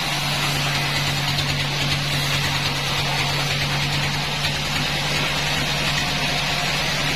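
A sawmill band saw running steadily, a constant low hum with an even hiss over it and no breaks.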